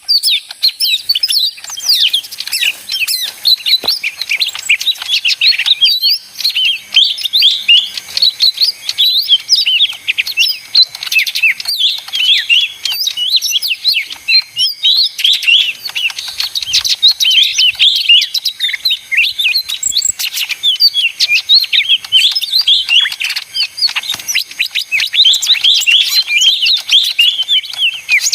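Cucak ijo mini (lesser green leafbird) singing a busy, chattering song: a fast, unbroken stream of high chirps and warbles.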